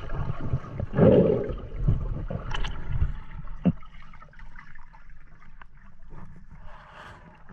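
Water sloshing and gurgling, with a few low thumps, louder in the first three seconds and quieter after.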